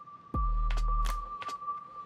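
Background electronic music: a deep bass note comes in about a third of a second in under a thin steady high tone, with short sharp ticks on the beat.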